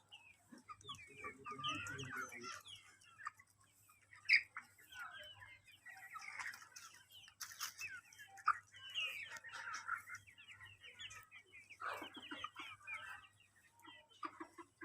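A flock of chickens clucking: many short, overlapping calls throughout, with a sharp knock about four seconds in.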